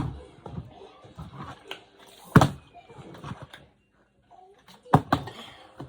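A flipped bottle knocking down onto a hard surface twice, about two and a half seconds apart; the first knock is the louder. Faint low chatter sits underneath.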